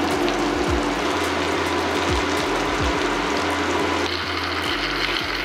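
Flour-dredged chicken breasts sizzling as they brown in melted butter and olive oil in a cast-iron skillet, a steady frying hiss over the low beat of background music.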